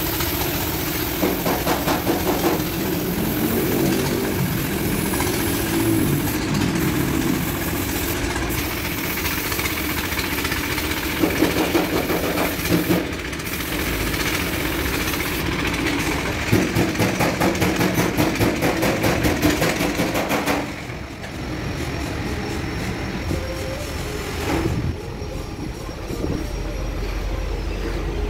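Compressed-air paint spray gun hissing over a steady, engine-like machine drone. The hiss stops about two-thirds of the way through, leaving the drone.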